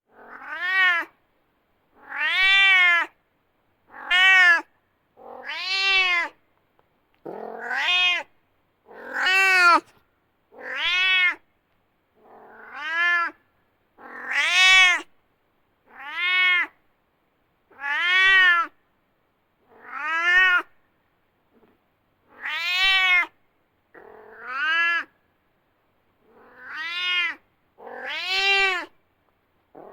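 Domestic cat meowing over and over, about one drawn-out meow every two seconds with silence between. Each meow rises and then falls in pitch.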